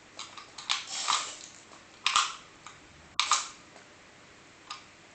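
Small remote-control toy car moved in short spurts, giving about five quick bursts of noise, each starting sharply and fading within half a second.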